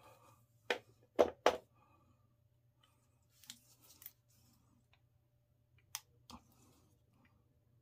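Plastic packaging of a tube of 5-minute epoxy being handled and opened: a few sharp clicks and snips, the loudest pair a little over a second in, soft rustling around three and a half seconds, and two more clicks near six seconds.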